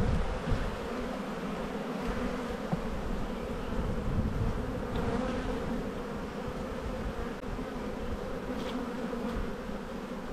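Honeybees buzzing in a steady hum over an opened hive as a crowded brood frame is lifted out, with a few faint knocks from handling the frame.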